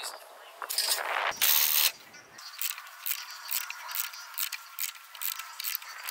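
Hand wrench turning the threaded rods of coil spring compressors on a car suspension strut, compressing a new heavy-duty coil spring: a run of irregular metal clicks and scrapes. A loud burst of noise comes a little over a second in.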